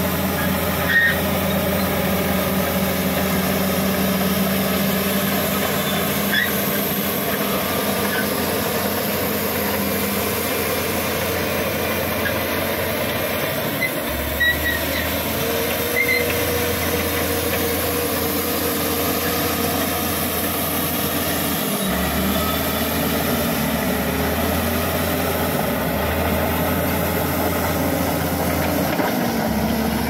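Shantui SD16 crawler bulldozer's diesel engine running steadily as the dozer pushes soil and gravel, with a few short knocks along the way.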